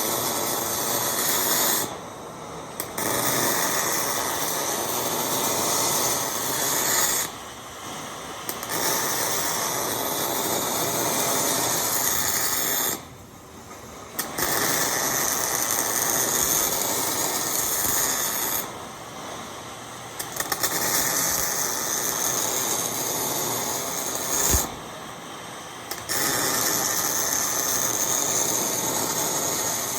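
MIG welding arc running in a series of welds several seconds long, each stopping for about a second before the next starts, five breaks in all.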